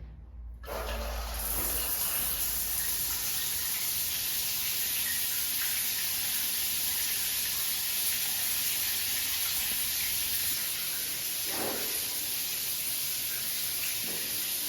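Water running steadily from a tap, turned on under a second in.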